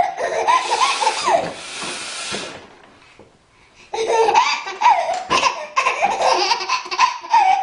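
A baby laughing in short repeated bursts over a loud, breathy blowing noise from a woman blowing her nose. Both stop for about a second around three seconds in, then start again at once.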